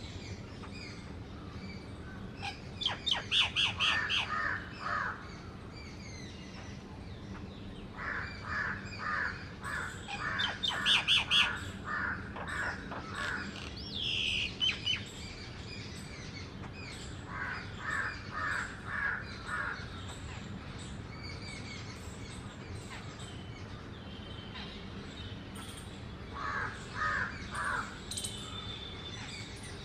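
Jungle babblers chattering: four runs of harsh, rapid notes spread a few seconds apart, with higher chirps and a short whistled call from other birds in between.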